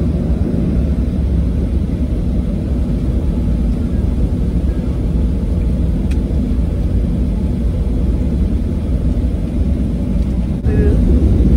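Airliner cabin noise in flight: a steady low rumble of engines and rushing air. It steps up in loudness near the end.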